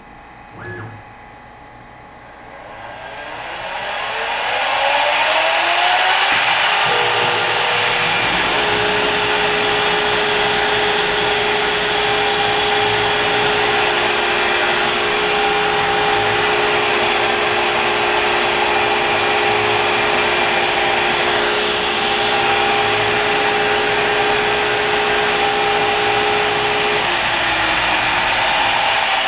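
Avid CNC router spindle spinning up to 24,000 RPM with a rising whine over the first few seconds, then running steadily with a loud rushing noise while a Datron 20 mm two-flute end mill faces aluminum. Near the end the whine drops in pitch.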